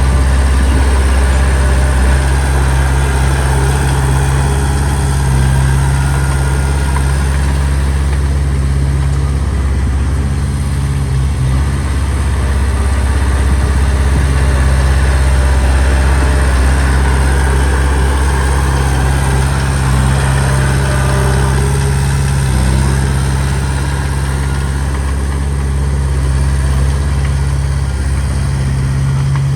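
Heavy diesel engine of earthmoving machinery running steadily, with a deep low drone and slight easing and picking up of load a few times.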